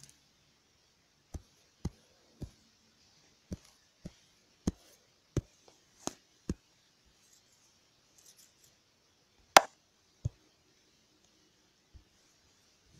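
About a dozen short, irregular taps on a tablet's touchscreen, with one louder tap about ten seconds in.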